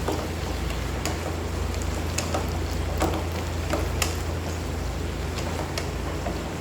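Spatula stirring chicken and okra in a pan, with scattered scraping clicks against the pan over a steady low hum.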